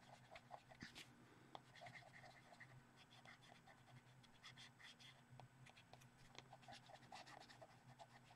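Faint scratchy rubbing on paper in short, irregular strokes as green pastel is blended into a colouring-book page, over a low steady electrical hum.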